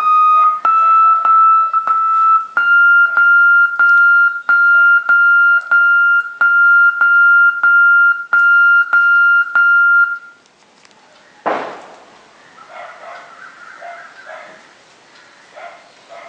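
Steady electronic signal-level tone from a satellite TV set-top box's transponder screen, broken by short clicks about twice a second and stepping up in pitch twice. It stops about ten seconds in, and a single thump follows a second later.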